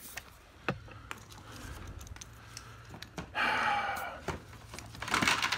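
Small handling clicks at a car wheel's tyre valve, then a short hiss of air lasting under a second, about three seconds in.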